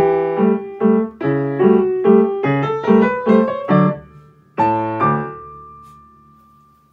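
Upright piano played: repeated chords, then a quick run of notes climbing in pitch, and a final chord a little past halfway that is held and rings away to near silence.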